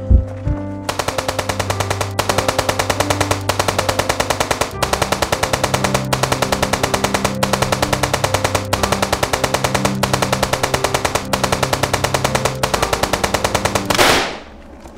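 Tense film music with a rapid, even pulse of sharp hits, about eight a second, over sustained changing notes. About fourteen seconds in it gives way to a single loud handgun shot that dies away.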